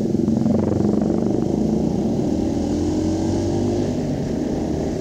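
Motorcycle engine running on the road, its pitch dipping slightly and then climbing steadily for a couple of seconds as the bike accelerates, over a steady rush of wind and road noise.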